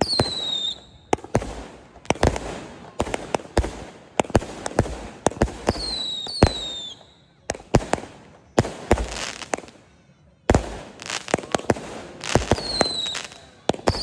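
An 88-shot firework cake firing shot after shot, each one a sharp bang as it launches and bursts. Three times a whistling shell gives a high whistle that falls in pitch, and hissing fills the gaps between shots.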